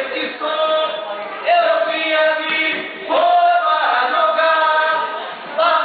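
A group of voices singing a capoeira song in chorus, in phrases of long held notes, with new phrases starting about a second and a half in and again about three seconds in.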